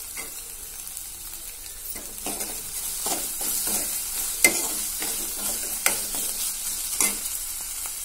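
Sliced onions frying and sizzling in a metal kadai while a steel ladle stirs them, scraping and clinking against the pan in a run of strokes from about two seconds in.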